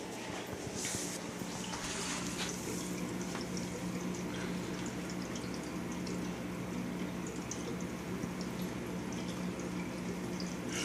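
Dog mouthing and chewing a fabric velcro treat toy: many small scattered clicks and brief rustles, with a couple of louder rustles in the first few seconds, over a steady low hum.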